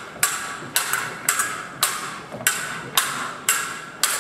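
Sword blades clashing in choreographed stage fencing: about eight sharp strikes, roughly two a second, each followed by a short bright ring.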